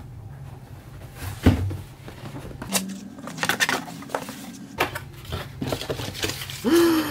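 Cardboard packaging being handled: a box lid lifted and cardboard inserts slid and pulled out, giving scattered knocks and scrapes with one sharp thump about a second and a half in.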